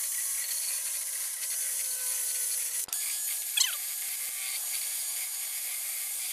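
A drill spinning a wire brush against the steel eye of a Mercedes W123 lower control arm, scrubbing off rust and grime to clean the metal after the old bushings were pressed out. The scrubbing is steady, with a short squeal from the brush about three and a half seconds in.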